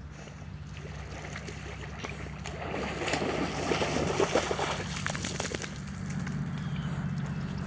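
Water splashing as a dog swims and then bounds through shallow water to the bank. The splashing is loudest around the middle.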